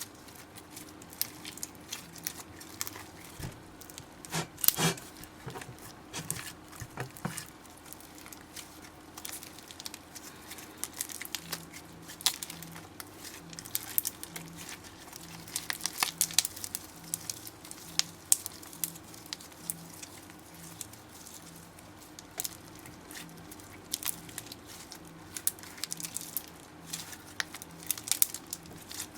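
Slime being squished and stretched by hand, making irregular sticky clicks and small wet pops, loudest about five seconds in.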